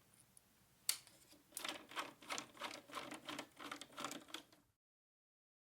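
Window blinds clattering as they are worked: a single sharp click about a second in, then a run of quick rattling clicks, about four or five a second, which stops abruptly near the end.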